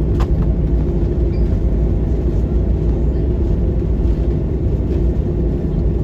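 Steady, loud low rumble inside the cabin of a Boeing 737-800 with CFM56-7B engines decelerating on the runway just after landing. A short click sounds just after the start.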